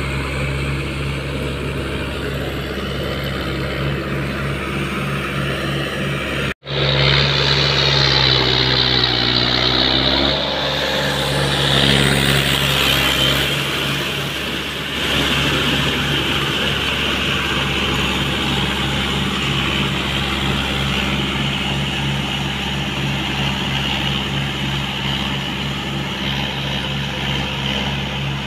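Mahindra 475 DI tractor's four-cylinder diesel engine running steadily under load, driving a rotavator through flooded paddy mud. About six and a half seconds in the sound breaks off for an instant and comes back louder, with more hiss.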